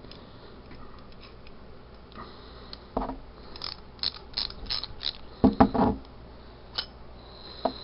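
Ratcheting wrench clicking in short runs as it loosens the threaded body of a metal check valve. A few louder metal knocks follow near the end.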